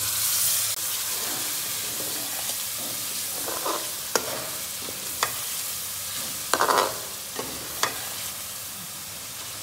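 A splash of water hitting the hot, oil-separated masala and chicken in a stainless steel pan sets off a loud hiss at the start; the masala then keeps sizzling while a metal spoon stirs and scrapes it, clinking sharply against the pan a few times.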